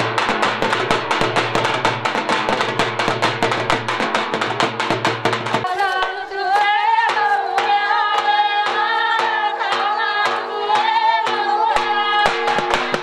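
A group of women singing a traditional Banjara wedding song, accompanied by a large double-headed drum beaten with sticks. The drum keeps up a fast, even beat at first and drops out about halfway, leaving the women's singing over a lighter beat.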